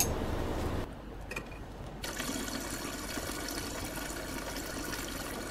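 Tap water running in a thin stream onto a metal slide rack sitting in a shallow tray of water, a steady splashing hiss that comes in about two seconds in; the H&E-stained slides are being rinsed after the eosin.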